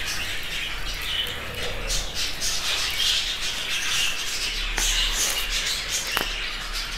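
A roomful of caged budgerigars chattering and squawking in a continuous busy twitter, with a couple of light clicks in the second half.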